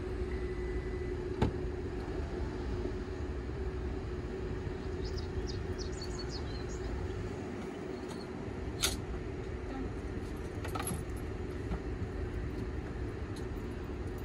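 Steady parking-lot background of low rumble and hum. About a second and a half in comes a sharp click as the SUV's rear tailgate is unlatched, and near nine seconds there is a second sharp click.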